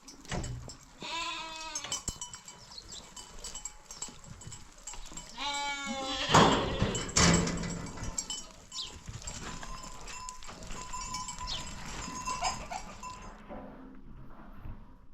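Flock animals bleating: two long, quavering bleats, the first about a second in and the second, louder one about five and a half seconds in.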